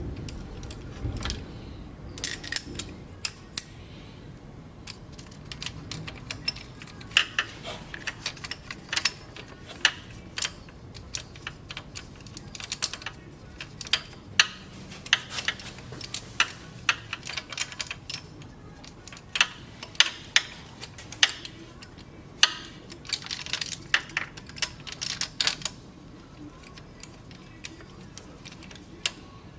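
Irregular light metallic clicks and clinks of small metal tools or parts being handled. They come in clusters and die away near the end.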